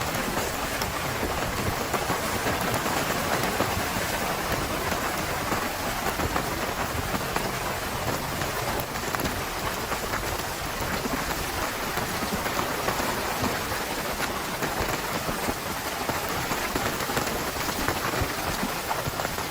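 Heavy rain falling steadily, a dense even patter of drops with no pause or change.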